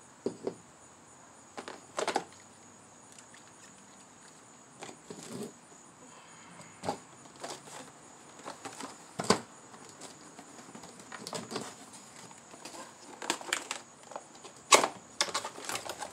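Handling of cardboard packaging: scattered short knocks, taps and scrapes as a cardboard box insert is lifted and moved on a table, the sharpest knock near the end.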